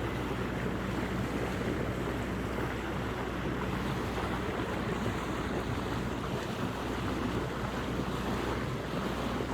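A motor boat's engine running steadily as the boat cruises, a constant low drone, under the rush of water along the hull and wind on the microphone.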